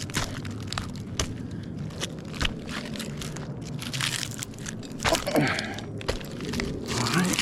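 Climbing spurs biting into pine bark as the climber steps up the trunk: a series of irregular crunches and knocks.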